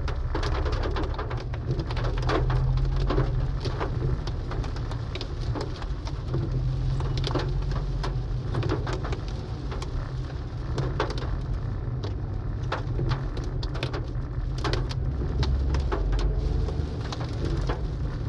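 Rain hitting a car's windshield and roof, heard from inside the moving car: many irregular sharp drop hits over a steady low rumble of road noise.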